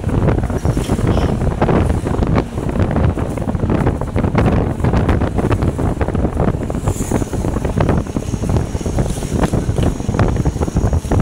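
Wind buffeting the microphone of a camera riding on a moving vehicle, a constant low rumble with irregular gusty thumps, with road and traffic noise beneath.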